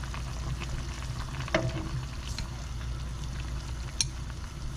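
Soft tofu stew bubbling in an earthenware pot, with a metal spoon knocking against the pot about a second and a half in and again near the end as salt is stirred in.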